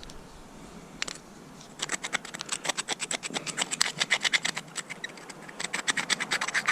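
Rapid scratchy scraping strokes, several a second, starting about two seconds in after a single click: sediment being scraped and scrubbed out of a small engine's carburetor float bowl.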